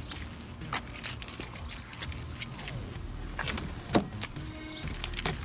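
A bunch of car keys jangling in hand, in scattered clinks, with a sharper knock about four seconds in.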